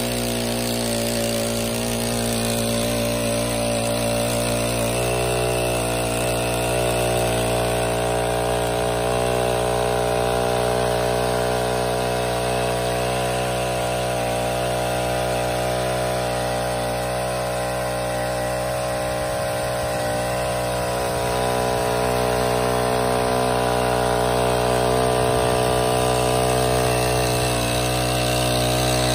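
Small Honda four-stroke engine of a portable water pump running steadily under load as it pumps water.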